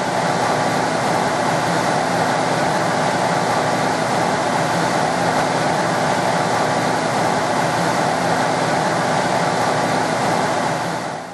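Blower motor running at a steady speed, with a steady rush of air over a constant low hum.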